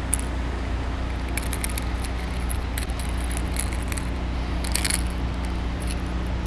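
Light metallic jingling in two short clusters, over a steady low motor hum from the boat.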